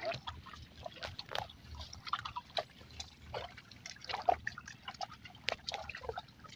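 Wet mud and water being handled by hand: irregular small splashes, drips and squelches as the catch is scooped from a fine-mesh fishing net into a bamboo basket.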